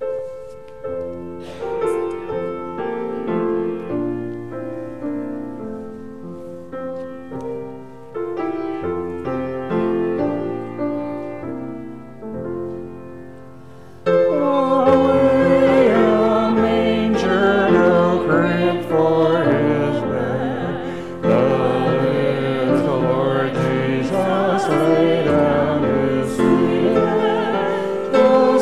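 Grand piano playing a slow introduction alone, then singing comes in about halfway through and is louder, with the piano accompanying.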